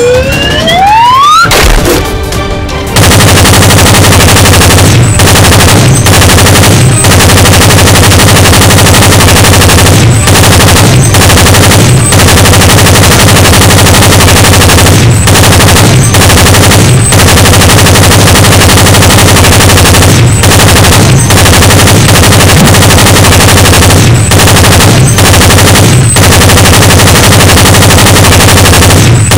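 Dubbed-in machine-gun sound effect: loud, continuous rapid automatic fire that starts about three seconds in and runs on with short breaks about once a second. Before it comes a brief rising whistling glide.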